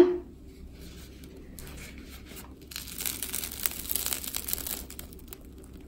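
Crisp crust of a freshly baked baguette crackling as it is broken open by hand. Faint crackles at first, then a dense run of crackling from about three seconds in that lasts around two seconds.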